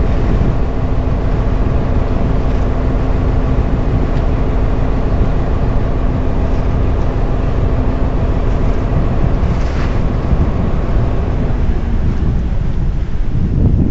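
A dhoni's motor running steadily as the boat crosses open water, with wind buffeting the microphone. The engine's steady note fades out about twelve seconds in, leaving mostly wind rumble.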